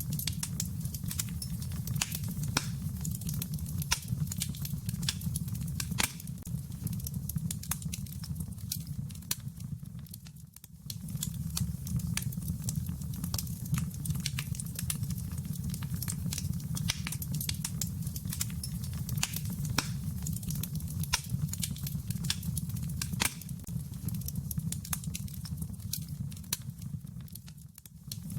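Wood fire in a fireplace burning, a steady low rumble with many sharp, irregular crackles and pops. The sound fades down briefly about ten seconds in and again near the end.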